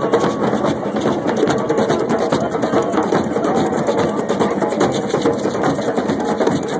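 A drum circle: many hand drums, djembes among them, struck together in a dense, continuous rhythm, with crowd voices mixed in.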